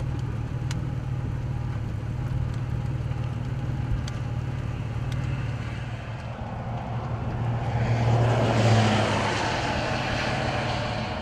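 Steady low hum of an idling vehicle engine, with a passing vehicle's engine and tyre noise swelling from about six seconds in, loudest near nine seconds, then fading.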